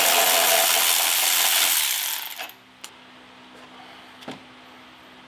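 Milwaukee cordless electric ratchet running in one steady whir for about two seconds, backing out the bolt that holds a power steering hose bracket, then stopping. A few light clicks follow as the loosened metal bracket is handled.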